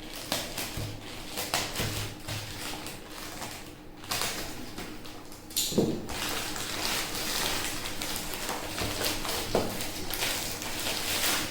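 Product packaging being handled: irregular rustling, scraping and light knocks, with a faint steady hum underneath.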